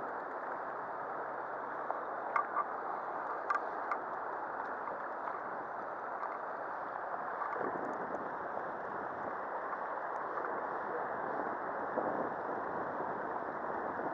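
Steady rush of river water flowing over a stony bed, with a few faint clicks.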